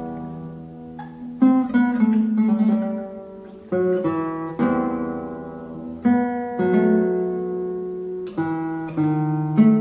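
Instrumental solo guitar music: slow plucked and strummed chords, each struck and left to ring out before the next.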